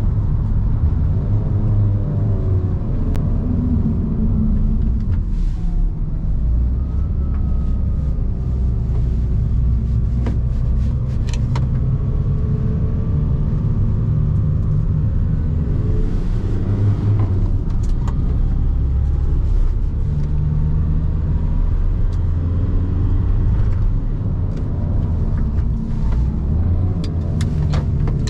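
Cabin sound of a VW T5 Transporter's 1.9 TDI four-cylinder turbodiesel with heavy road rumble while the van slows from about 100 to 40 km/h. The engine note falls and rises several times as it slows.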